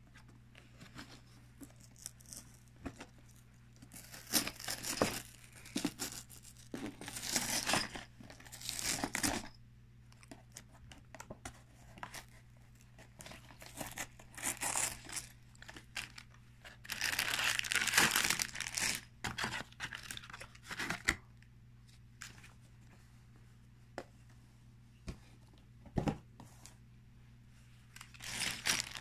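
A cardboard LEGO set box being torn open, heard as several bouts of tearing and crinkling, the longest and loudest lasting about two seconds a little past the middle, with scattered clicks and rustles of the box and its contents being handled between them.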